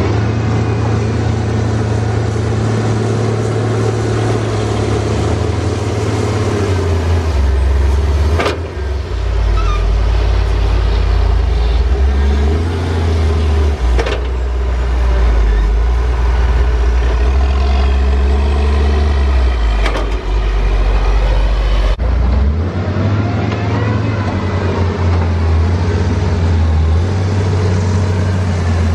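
Large diesel tractor engine running under working load, its low note shifting as the load changes about a quarter of the way in and again near the three-quarter mark. A few sharp clicks break in briefly.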